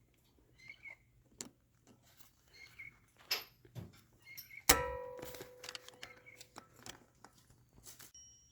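Scattered light clicks and knocks of tools and parts, then a single loud metallic clang about halfway through that rings on and fades over about a second.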